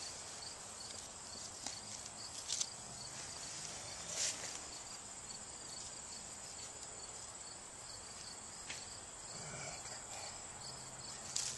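Steady high insect buzzing with a regular chirp repeating a few times a second, and a few short clicks and scratches as a knife works a small piece of wood.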